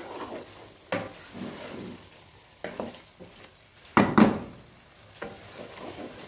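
Wooden spoon stirring meatballs, onions and tomato paste in a nonstick frying pan, scraping and knocking against the pan several times, the loudest knock about four seconds in. A faint steady sizzle of frying runs underneath as the tomato paste fries with the meatballs.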